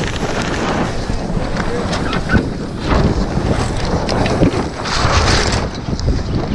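Wind buffeting the microphone aboard an Etchells keelboat under sail, over the rush of the boat moving through waves, swelling about three and five seconds in.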